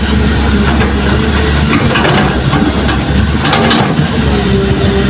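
Diesel engines of a hydraulic excavator and a dump truck running steadily with a low drone. There is a short rattle about three and a half seconds in.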